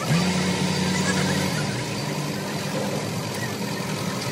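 An engine running steadily with a low hum. It picks up speed right at the start, then holds an even pitch.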